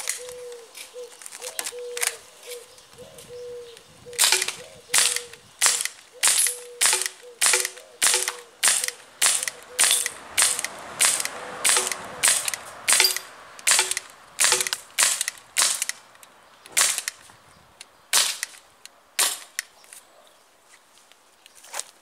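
Airsoft STTI M9 non-blowback pistol firing shot after shot, about thirty sharp cracks coming two to three a second, spacing out near the end. A few fainter clicks come before the string of shots.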